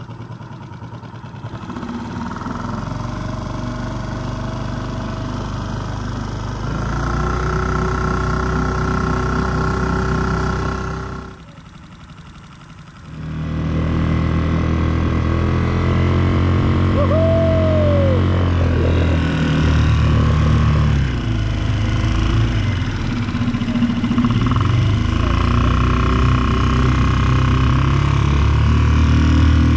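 Small outboard motor on an inflatable boat running steadily. It drops away briefly about eleven seconds in, then picks up again.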